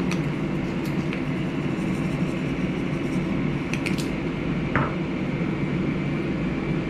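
Steady whirring hum of a running fan, even throughout, with a few faint light clicks about one, four and five seconds in.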